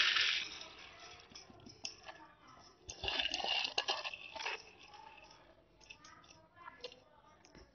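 Soaked black urad dal and kidney beans sliding off a ceramic plate and dropping into a metal pot, with scattered clicks of beans landing and fingers scraping the plate. It is loudest right at the start and again from about three to four and a half seconds in.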